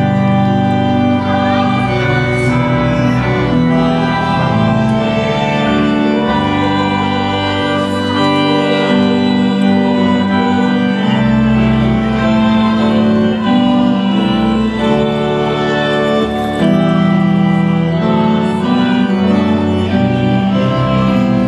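Organ playing slow, held chords over a moving bass line.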